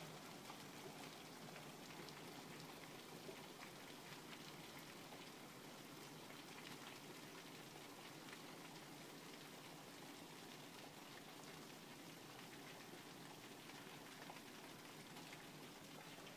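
Heavy rain falling steadily onto paving, gravel and a stone window sill: a dense, even hiss of countless drops hitting hard surfaces.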